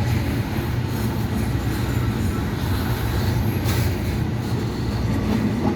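Heavy goods train running past on the rails: a steady, deep rumble of rolling wagons.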